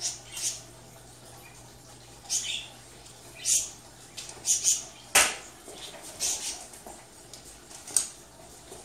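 Metal frame of a folding rollaway bed being handled and folded: a run of short scrapes and rustles with metallic clanks, the loudest a sharp clack about five seconds in and another near the end.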